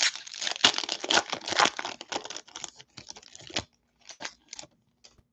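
Foil wrapper of a 2021 Bowman baseball card hobby pack being torn open and crinkled by hand: a dense crackle for about the first three and a half seconds, then a few short, separate crinkles.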